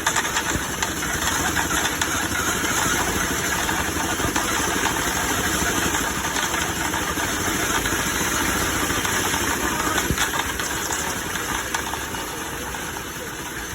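An engine running steadily, with a dense rushing noise over it that eases slightly near the end.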